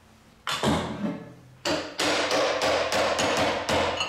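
Metal-on-metal clanking from a large hook spanner being worked on the driving plate at a Harrison 140 lathe's spindle nose. There is a single clank about half a second in, then a run of quick sharp knocks, about four a second, lasting about two seconds.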